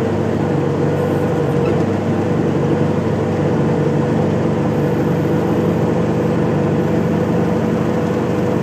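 Bobcat T300 track loader's diesel engine running steadily at idle, heard from inside the cab, warming up just after a cold start at about 14 °F.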